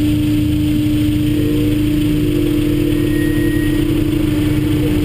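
Honda S2000 four-cylinder engine running at low revs with a steady drone as the car rolls slowly up close, other cars' engines idling behind it.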